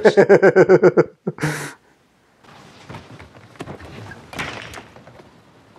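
A man laughing heartily in quick, even bursts for about a second, then a short breath. After a brief gap come a few faint knocks and thuds under quiet background sound.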